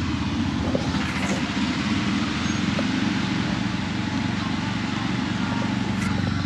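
Tuk tuk (auto rickshaw) engine running steadily while driving, with a constant hiss of road and wind noise over it.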